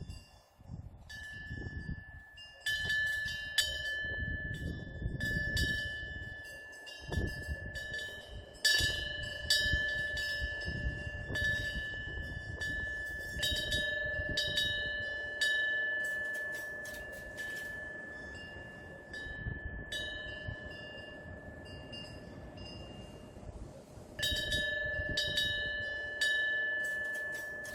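Korean temple eave wind bell (pungyeong) ringing as the wind swings its clapper: clear, sustained tones struck again and again at uneven intervals. The strikes thin out for a few seconds before a strong strike near the end. A low rumble of wind runs underneath.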